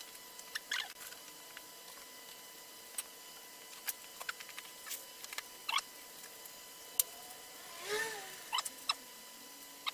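Sparse light clicks, taps and scratchy rustles of a foil-faced aluminium mat and a long cutting ruler being handled, with a longer, louder rustle about eight seconds in, over a faint steady high tone.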